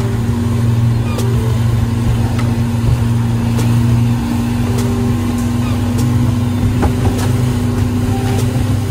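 An engine running steadily at an even speed, with a faint tick repeating about once a second.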